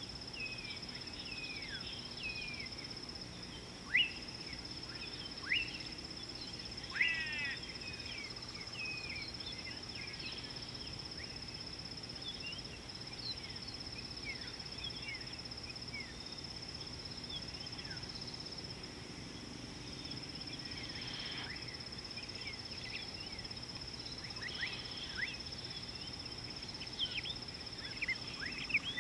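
Steady high-pitched insect drone with many birds chirping and whistling over it; the sharpest calls come about four and seven seconds in.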